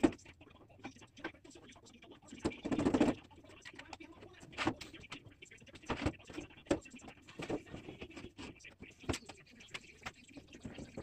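Plywood drawer parts being handled and moved: scattered light wooden knocks and taps, with a louder sliding scrape of wood lasting under a second about two and a half seconds in.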